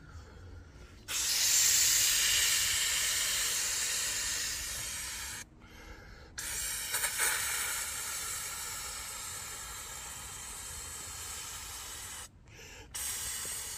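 A man inflating a camping pillow by mouth, blowing long steady breaths into its valve. The first blow lasts about four seconds and the second about six, with a brief pause to breathe in between. A third blow starts near the end.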